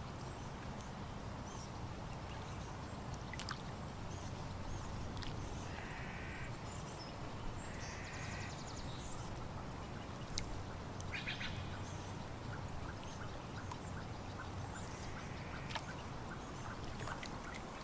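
Lakeside ambience: water lapping over a steady low noise, with small birds chirping and a few short duck quacks about six, eight and eleven seconds in. A quick run of soft regular ticks follows near the end.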